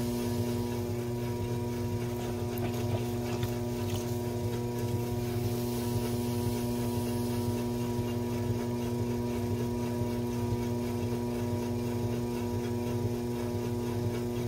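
Electric potter's wheel motor humming steadily at one unchanging pitch.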